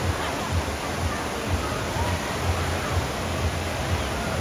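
Waterpark ambience: a steady rush of running and splashing water with faint distant voices, and irregular low thuds underneath.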